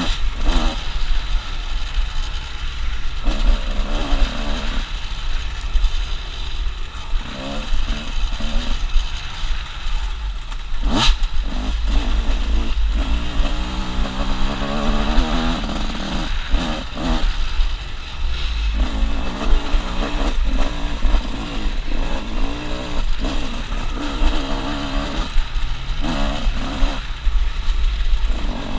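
Honda CR125 two-stroke dirt bike engine revving up and down as it is ridden over a rough dirt trail, with heavy wind rumble on the helmet microphone. One sharp knock about eleven seconds in.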